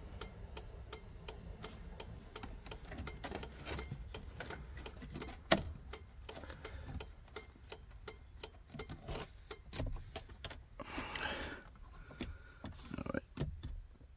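Fast, steady mechanical ticking runs under scattered knocks and rustling as plastic trim and a worn seal are worked into place around a pickup's steering-column shift lever. There is one sharp knock about five and a half seconds in, and a burst of rustling about eleven seconds in.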